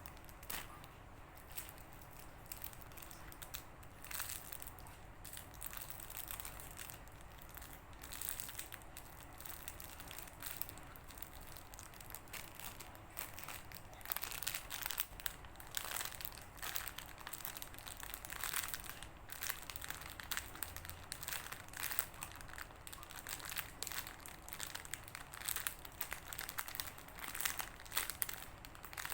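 Hands squeezing soft foam squishy toys, with irregular crinkling and crackling that comes thicker about halfway through.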